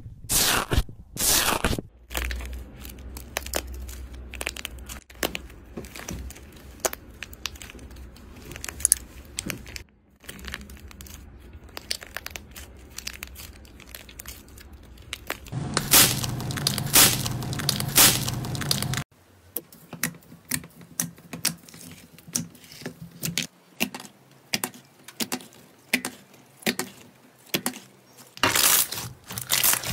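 Slime being squeezed, poked and stretched by hand, giving crackling, popping and tearing sounds made of many sharp clicks. It changes texture several times, with a louder run of pops a little past the middle and a series of separate clicking pops near the end.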